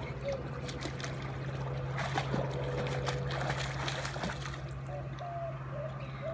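A small child splashing in a swimming pool, kicking and paddling face-down, strongest from about two to four and a half seconds in, over a steady low hum.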